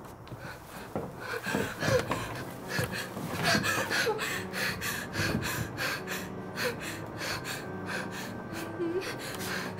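A young woman gasping and whimpering in distress, rapid ragged breaths that start about a second in and keep on.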